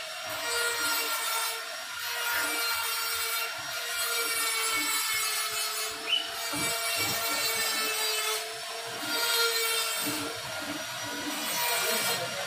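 Small gas-fired drum coffee roaster running: a steady motor hum over the continuous churning noise of the coffee beans being tumbled and stirred. A short high squeak about six seconds in.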